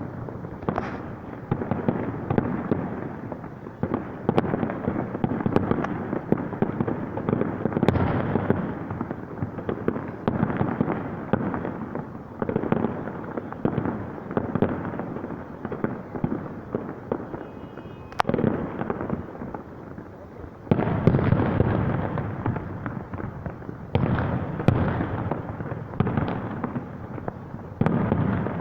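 Fireworks display: a continuous barrage of booming shell bursts and crackling, with a denser burst of crackle and booms starting about three-quarters of the way through.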